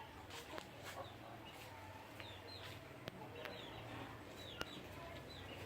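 Faint chicken calls: a handful of short, high chirps that each fall in pitch, spread over a few seconds, with two sharp clicks and a low steady hum underneath.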